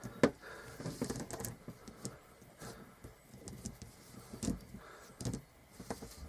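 Oiled Lexmoto ZSX 125 drive chain being flexed link by link by hand, its plates and rollers clicking and clacking irregularly, with one sharper click near the start. It is being checked for stiff, seized links.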